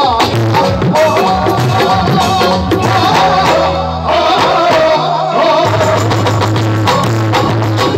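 Live Punjabi folk-devotional music through a PA: a wavering melody line over sustained bass notes and steady dholak drumming.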